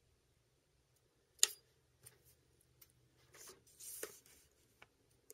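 Light handling noises of bookbinding materials on a desk: a single sharp click about a second and a half in, then scattered soft clicks and a brief rustle.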